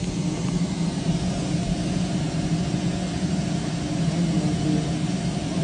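A cat purring steadily and loudly close by: a continuous low, rapidly pulsing rumble.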